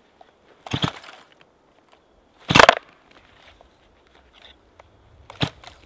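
Stihl MS 260 two-stroke chainsaw being pull-started: three short rasps of the starter cord, about two seconds apart, the middle one the loudest, without the engine catching.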